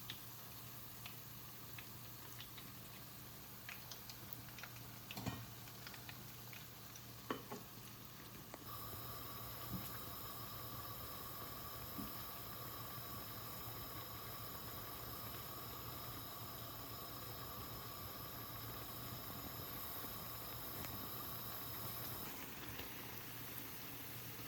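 A few light clicks and taps, then, about a third of the way in, a steady soft sizzle of food frying in a pan that starts suddenly and goes on.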